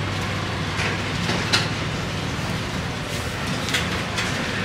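A motor running steadily with a low, even hum, with a few sharp knocks over it, the loudest about a second and a half in.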